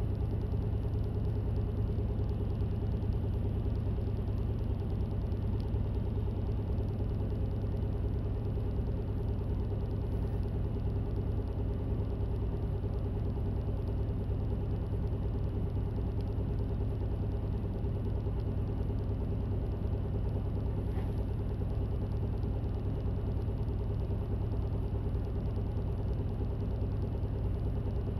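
The bus's engine and running gear heard from inside the cabin, a steady low drone that does not change.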